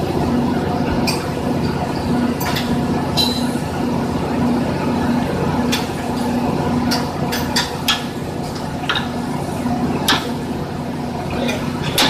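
Power pipe-threading machine running, its motor and gearing giving a steady hum with a low tone that pulses evenly, a little under twice a second. Sharp metallic clicks break in now and then.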